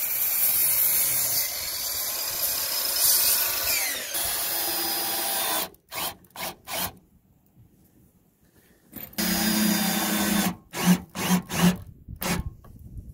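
Electric sliding miter saw cutting through a 4x4 post, its blade winding down with a falling whine about four seconds in. Then a cordless drill/driver driving screws into a rough-cut wooden plank: a few short bursts, a steady run and several quick trigger pulses near the end.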